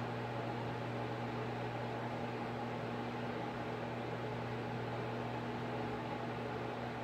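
Steady low mechanical hum with hiss, unchanging throughout: the drone of a fan or similar running appliance.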